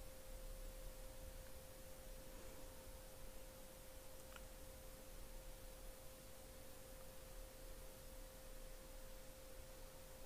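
Near silence: quiet room tone with a faint, steady tone held at one pitch throughout.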